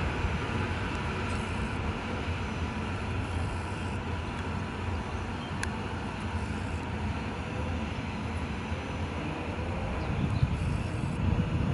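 EN57AKM electric multiple unit moving slowly along the platform track: a steady low rumble, with a faint rising whine about halfway through and a single sharp click.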